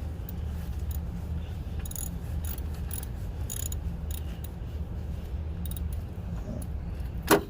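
Faint metal clicks and ticks of hand tools working bolts on an alternator, over a steady low rumble, with one loud sharp clank near the end.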